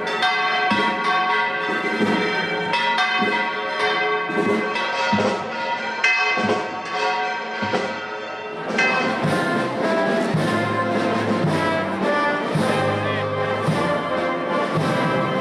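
Church bells pealing, a rapid run of overlapping strikes whose tones ring on into each other. From about nine seconds in the sound becomes denser, with a low steady drone underneath.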